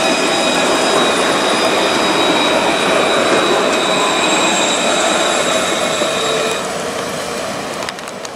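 Barcelona Alstom Citadis low-floor electric tram passing close by, with running noise on the rails and a steady high-pitched whine in several tones. The whine stops about six and a half seconds in, and the sound fades as the tram moves away.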